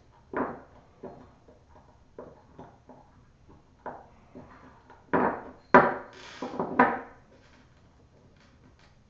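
Plastic clicks and knocks of laptop parts being handled and set down during reassembly: a few light taps, then a louder cluster of knocks about five to seven seconds in.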